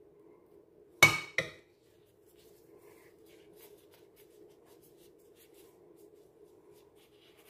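Two sharp clinks about a second in, a metal spoon knocking against a dish as the filling is put down, then faint rustling of plastic-gloved hands folding a pastry sheet over a low steady hum.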